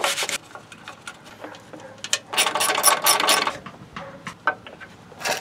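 Ratcheting socket wrench clicking in quick runs, the longest lasting about a second a little after two seconds in, as it turns the mounting nut of a new downstream NOx sensor's control module.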